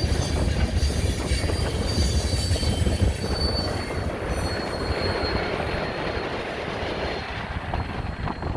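CN train's railcars rolling past with a steady rumble and thin, high wheel squeal; the rumble eases off near the end.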